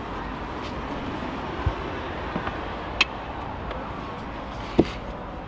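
A person clambering into the back of a car with its rear seats folded down: rustling and shuffling, with a few short knocks and clicks, the sharpest about three seconds in, over a steady background noise.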